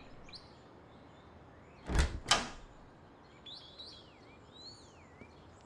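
A wooden interior door's handle and latch clicking twice, about half a second apart, as the door is opened. A few faint bird chirps follow.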